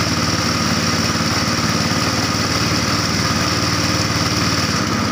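Small boat engine running steadily at an even speed.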